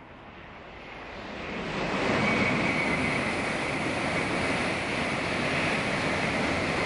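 Tokaido Shinkansen bullet train passing at speed. Its rushing noise swells over the first two seconds, then holds steady and loud as the cars go by, with a high hiss running through it.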